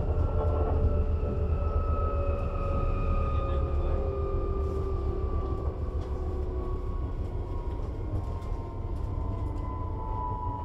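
Bombardier/Alstom ET 422 S-Bahn electric multiple unit heard on board: a low running rumble under the whine of its electric traction drive, several tones gliding steadily down in pitch as the train slows.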